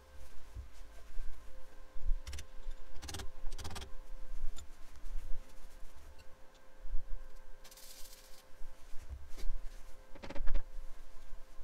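Hands and tools working on a tractor's hydraulic lift linkage: scattered clinks and knocks with brief rustling, over a faint steady hum.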